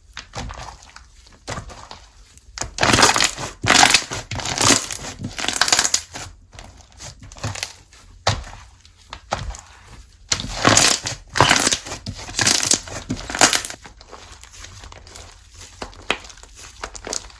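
Slime being worked by hand, squished and pressed with crackling, crinkly popping sounds. It comes in two loud spells, a few seconds in and again past the middle, with softer squishing in between.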